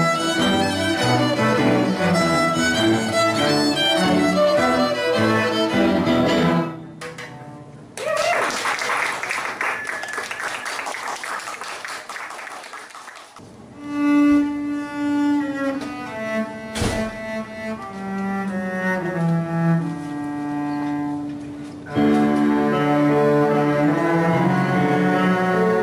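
Student string ensemble of cellos and violins playing a lively tune that stops about six seconds in. A few seconds of even, unpitched noise follow and fade, then slow held cello notes, and the full ensemble comes back in near the end.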